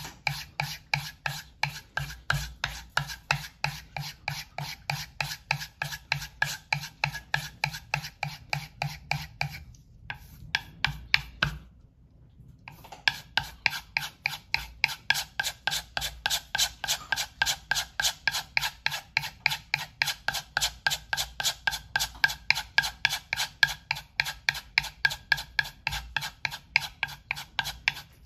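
Opinel knife blade being stropped on a paste-loaded leather strop: quick, even back-and-forth strokes, about three a second, with a short break near the middle. This is the final edge-polishing stage after the sharpening stones.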